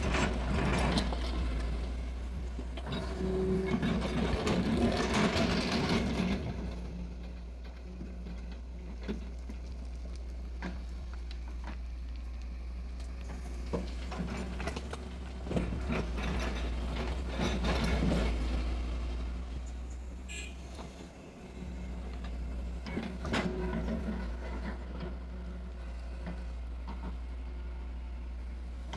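Hyundai hydraulic excavator's diesel engine running steadily, rising in several louder surges as the arm and bucket work. Scattered clanks and rattles come from the bucket loading soil into a dump truck.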